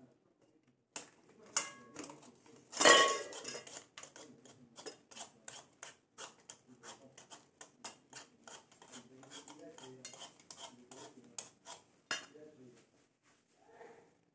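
A metal utensil scraping the seeds and pulp out of a halved kalabasa squash in quick, repeated strokes, with clinks against a metal bowl; a louder clatter about three seconds in.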